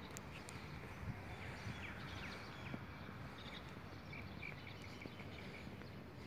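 Birds chirping faintly over a steady low background rumble.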